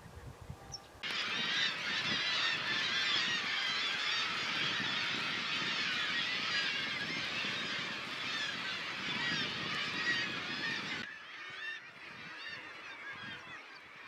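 A dense chorus of many birds calling at once, overlapping and continuous. It starts suddenly about a second in and drops off sharply after about eleven seconds, leaving fainter calling.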